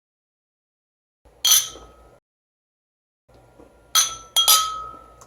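Drinking glasses clinking together in a toast: one ringing clink about a second and a half in, then a quick run of three clinks near the end, each ringing briefly.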